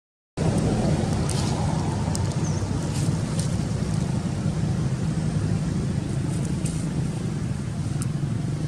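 A motor vehicle's engine running steadily with a low, even hum. It starts right after a split-second of silence at the very start.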